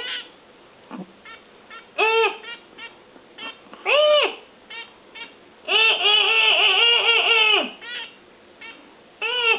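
A person making high hooting, bird-like calls at a bird: short rising-and-falling calls, then one long wavering call about six seconds in, with faint quick chirps in between.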